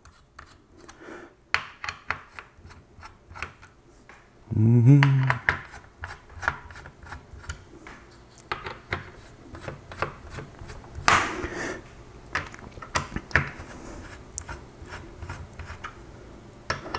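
Screwdriver backing out the spring-loaded mounting screws of an AMD Wraith stock CPU cooler: irregular clicks and scraping of the driver tip in the screw heads and metal on metal. A short hummed voice sound comes about four and a half seconds in.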